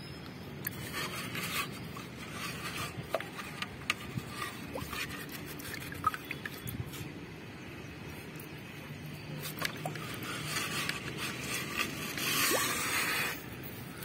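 Fingers scraping and picking hard-water limescale flakes off the rim and inside of a solar water heater's small metal inlet tank, with scattered short scrapes and crackles. A longer, louder scrape comes near the end.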